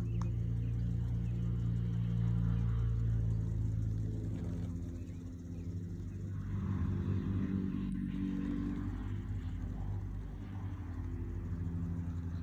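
A steady low engine hum that swells and eases a little without stopping.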